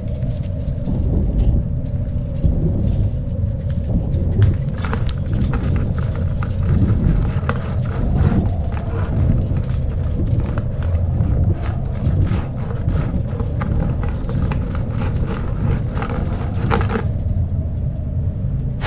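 A loud, low rumbling drone with a faint steady hum above it, under scattered small clicks and ticks from a rope being handled.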